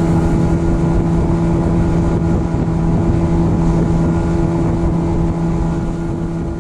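Boat's outboard motor running at a steady speed, with wind on the microphone.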